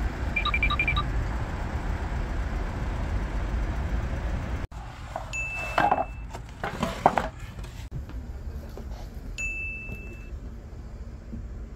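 Wooden boards clattering and knocking as they are laid out on a floor. Around them are short chime-like dings: a quick run of them near the start over a low rumble, and two held ding tones later on.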